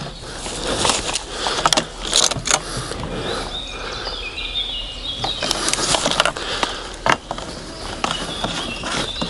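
Several sharp clicks and knocks from a chainsaw being handled after refuelling, over a background of birds chirping.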